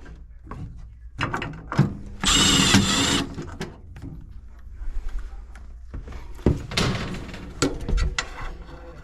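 A power drill-driver runs in one burst of about a second, about two seconds in, driving a screw. Scattered knocks and clicks come before and after it.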